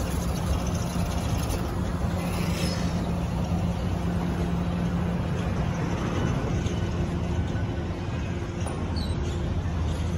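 Passenger coaches rolling slowly past on the rails: a steady rumble of wheels and running gear with a low hum underneath.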